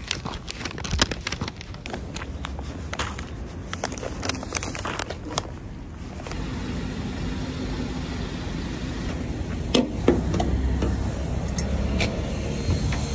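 Rustling and crackling from a paper bag and padded jacket being handled, with many sharp clicks. After a cut comes a steady low rumble of street traffic, with a few sharp knocks about ten seconds in.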